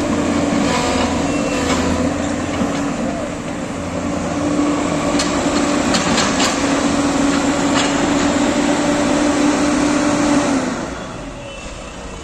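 JCB crawler excavator's diesel engine and hydraulics working hard with a steady hum, a few sharp knocks mixed in. About ten and a half seconds in, the working sound drops off as the machine settles to idle.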